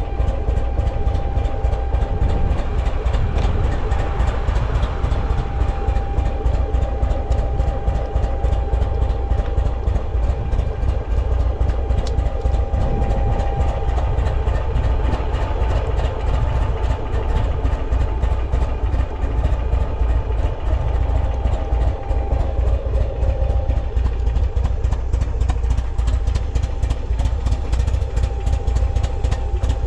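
Buell XB9S Lightning's air-cooled V-twin engine idling steadily, with no abnormal noises according to the seller.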